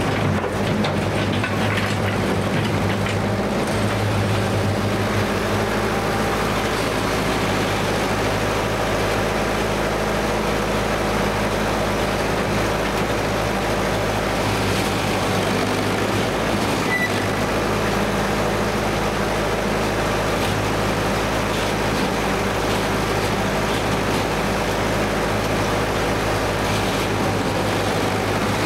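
A 1955 Bucyrus-Erie 15B cable shovel running steadily under load as it digs and swings. There is one brief high squeal past the halfway point.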